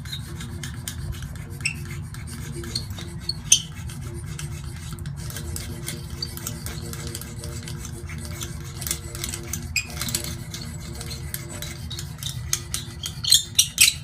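Tire-patch stitching roller worked back and forth over a freshly laid patch inside a truck tire, pressing it onto the cemented liner: a rasping rub with scattered clicks that come faster and louder near the end. A steady low hum runs underneath.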